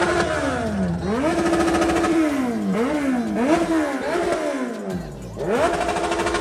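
Motorcycle engine being revved repeatedly: each time the pitch climbs quickly, holds briefly at the top and falls back, five or six times.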